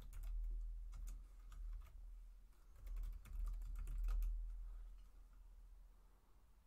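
Typing on a computer keyboard: a quick run of keystroke clicks that stops about four seconds in.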